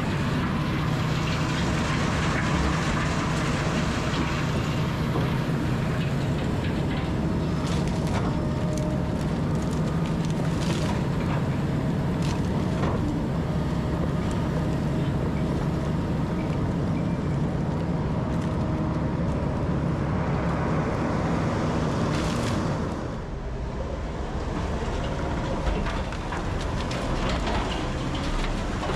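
Heavy diesel machinery running steadily under load, from the Rotochopper wood grinder and its feeding front loader, with scattered sharp knocks and cracks. The din drops for a moment about two thirds of the way through, then carries on.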